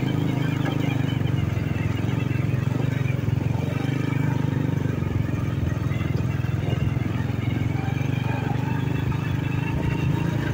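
Motorcycle engine running steadily as the bike is ridden along a rough dirt track, an even low drone with no change in revs.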